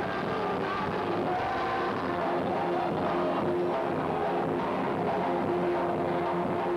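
Live amplified music: a group of women singing together over a steady instrumental accompaniment, with long held notes.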